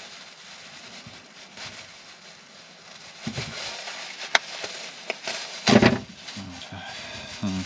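Thin plastic produce bag crinkling and rustling as it is handled and Brussels sprouts are pulled out of it, with sharp crackles and the loudest burst of rustling about six seconds in.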